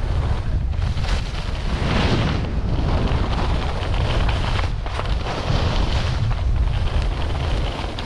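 Wind buffeting the camera's microphone with a heavy low rumble while skiing downhill, over the hiss and scrape of skis carving across packed, chopped-up snow, swelling and fading with each turn.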